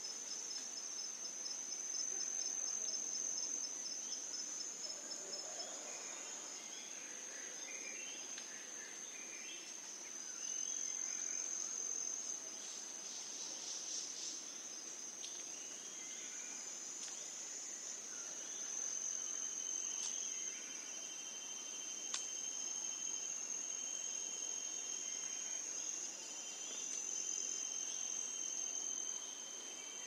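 Nature ambience of insects chirring in a steady, high, unbroken buzz, with scattered short chirps through the middle. A second, lower insect trill joins about two-thirds of the way through, and there is a single sharp click shortly after.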